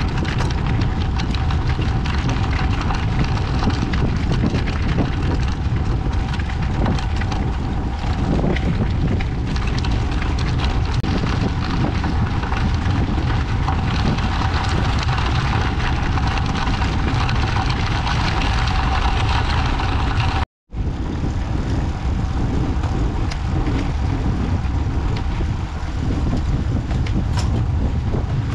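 Steady wind and road noise on a camera microphone from a road bicycle on the move. It cuts out for a moment about twenty seconds in.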